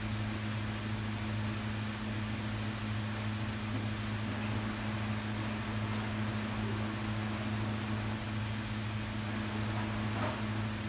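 Steady low hum with an even hiss from a kitchen appliance running.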